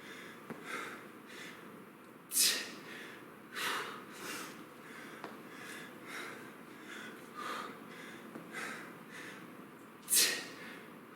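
A man breathing hard during a kettlebell exercise: short, forceful breaths about once a second, with two sharp, loud exhales, one about two seconds in and one near the end.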